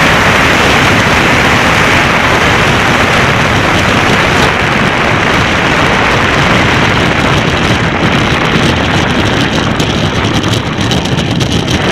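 Bobsleigh sliding on an ice track, heard from an on-board camera: a loud, steady rushing roar of runners on ice and wind on the microphone. The roar thins after about four seconds and turns rougher, with rattling, in the last few seconds.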